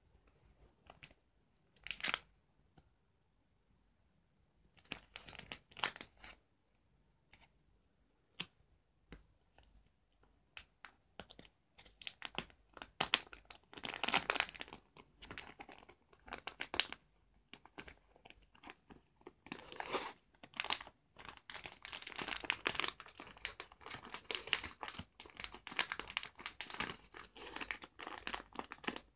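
Packaging being handled, crinkled and torn open: scattered rustles at first, then near-continuous crinkling and tearing through the second half.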